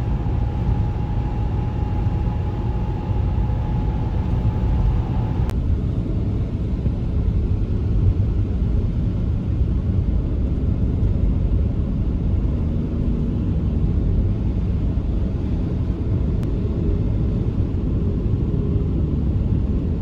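Car driving: a steady low rumble of engine and road noise. A faint steady tone rides over it for the first five seconds or so.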